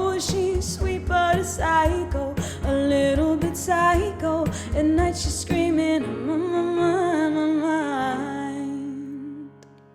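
Pop song's ending: a sung melody over a drum beat and keyboard, the beat stopping about six seconds in while the voice carries on briefly, then a last held chord fading out near the end.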